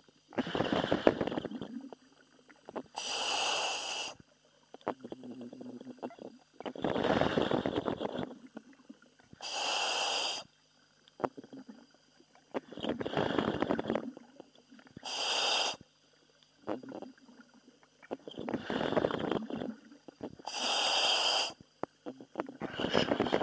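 Commercial diver's breathing heard over the helmet communications: steady, regular breaths, each a rough noisy burst followed by a sharp hiss from the breathing gear, a pair about every five to six seconds.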